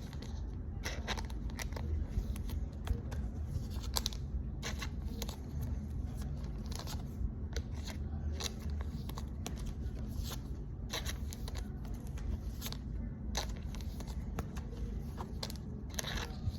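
Pokémon trading cards being handled and sorted: scattered short crinkles and clicks of card against card and packaging, over a low steady rumble.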